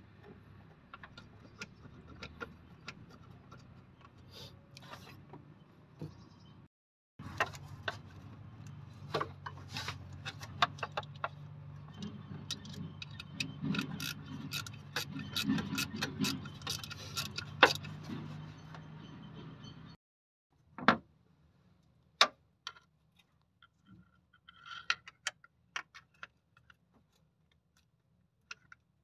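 Irregular metallic clicks and clinks of hand tools and bolts on a car alternator and its mounting, heard over a low steady hum. About two-thirds of the way through the hum stops and only a few scattered sharp clicks remain.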